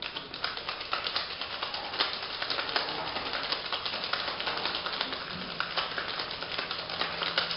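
Ice rattling rapidly inside a metal cocktail shaker during a vigorous Japanese-style hard shake, a dense, continuous clatter of ice striking the tin.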